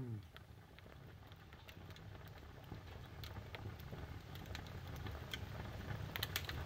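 Background music cuts off with a brief downward slide in pitch. It gives way to faint ambient noise with scattered light clicks and taps, a few of them close together near the end.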